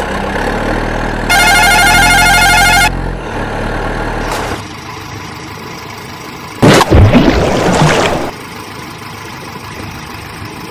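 Truck engine sound effect running steadily, with a loud warbling vehicle horn for about a second and a half starting just over a second in; the engine sound cuts off around four and a half seconds in. A loud, rushing burst with swooping pitch follows around seven seconds in and lasts over a second.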